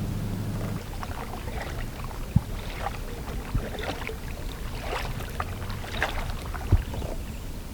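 Kayak paddling: paddle strokes splashing and dripping irregularly in the water, with a few sharp knocks, likely the paddle against the hull. A low steady drone stops about a second in.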